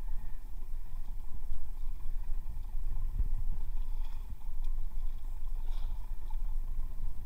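Steady low rumble aboard a small fishing boat at sea.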